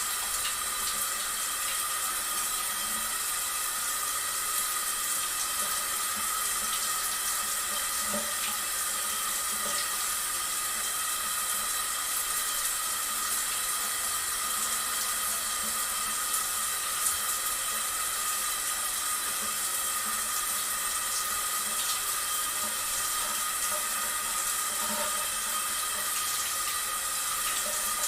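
Steady running water, an even rushing that holds at one level throughout, with a few faint steady high tones running through it.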